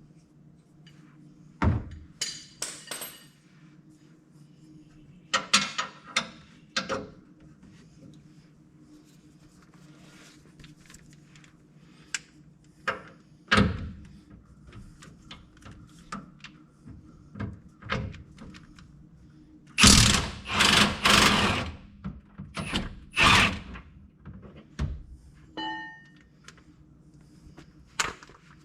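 Hand tools working bolts on a pickup's front bumper brackets from underneath: irregular metal knocks, clanks and short scraping bursts, busiest about two-thirds of the way through, with a brief squeak near the end.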